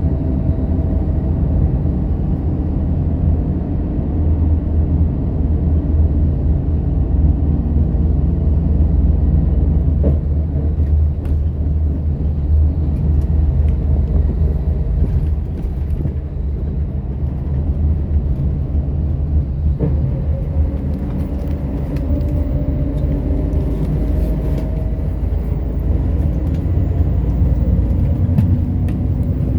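A bus's engine and tyres make a steady low rumble as it drives, heard from inside the bus. About two-thirds of the way in, a faint whine slowly rises in pitch as the bus picks up speed.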